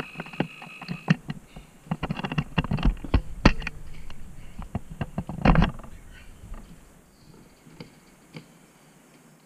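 Kyosho Mini-Z RC car: a steady high whine stops about a second in, then comes a run of knocks and clatter with two louder thumps, about three and a half and five and a half seconds in, before it goes quiet.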